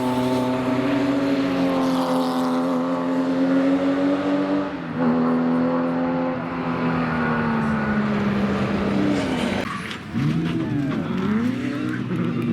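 Racing car engines under load at trackside, one car's engine note giving way to another's about five seconds in. Near the end the engine pitch swings up and down as revs rise and fall.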